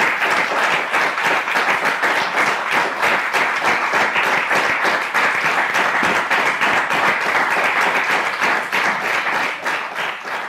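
Audience applauding: many hands clapping densely, thinning and fading near the end.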